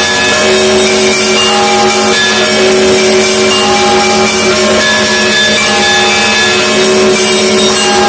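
Russian Orthodox monastery bells ringing a festal peal: many bells of different pitches struck in quick overlapping succession, each ringing on as new strokes come in over a steady low tone.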